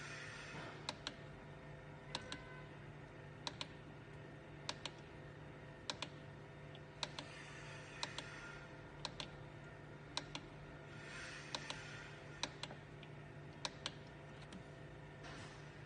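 Small aromatherapy humidifier running quietly with a steady low hum, and irregular short clicks, often in quick pairs, about one or two a second.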